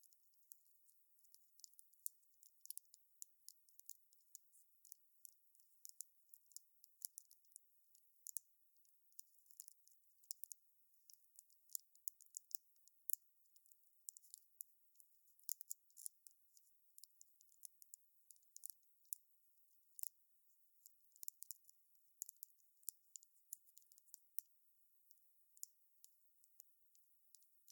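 Wood fire crackling: irregular sharp pops and snaps, several a second, all thin and high-pitched with no low rumble beneath.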